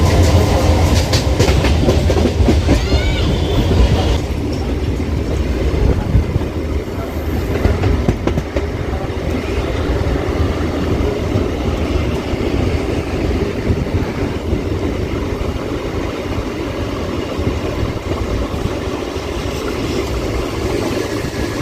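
Suburban electric local train running along the track, heard from aboard: a steady rumble of wheels on rail. Quick clatter from the rail joints is heaviest in the first few seconds, then settles into a more even rumble.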